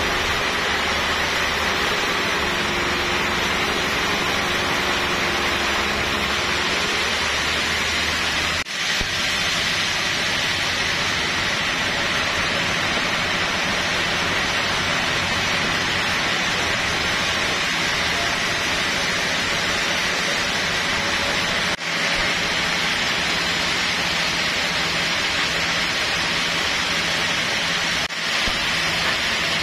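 Steady mechanical din of sawmill machinery and a running forklift engine, with a few very brief breaks.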